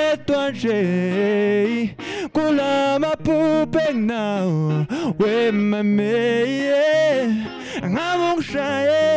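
A man singing a melodic line with long held notes that bend in pitch, accompanied by an acoustic guitar.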